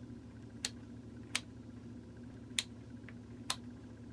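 About five sharp, irregular plastic clicks as the vintage Sears plug-in timer's controls are switched over to automatic and its variable button pushed in, over a steady low hum.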